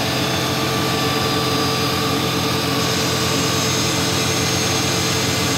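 WMW SI 4 internal grinding machine running: a steady mechanical hum with several constant whining tones layered over it.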